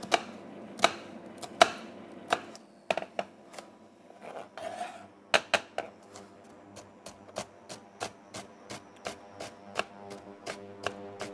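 Chef's knife dicing an onion on a plastic cutting board, the blade knocking against the board. The strokes come slowly, under one a second, then quicken to about three a second from about five seconds in.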